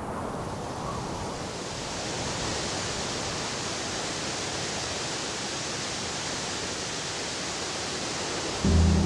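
Small woodland waterfall cascading over rocks: a steady rush of falling water. Music cuts in near the end.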